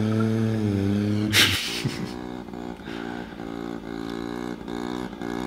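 Opel Corsa engine running with a steady note that dips slightly, cut off about a second and a half in by a short burst of noise. After that a moped engine is heard from a distance, running with an uneven, pulsing note.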